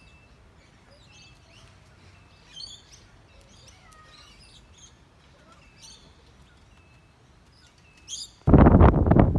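Birds chirping and whistling in short, scattered calls over a quiet background. About a second before the end, a sudden loud rush of wind noise on the microphone drowns them out.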